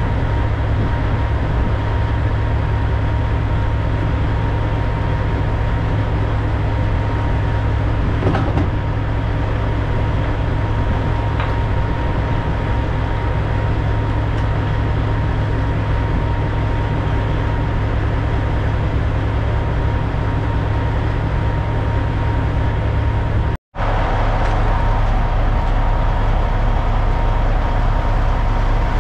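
Kenworth W900L semi truck with a Cummins X15 diesel running steadily down the road: a constant low engine drone with road noise and a thin steady whine. The sound cuts out for an instant about 24 seconds in, then resumes.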